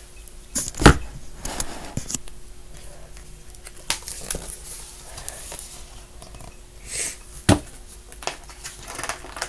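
A picture book being handled and opened: paper and cover rustling as pages turn, with a few sharp knocks, the loudest about a second in and another later on.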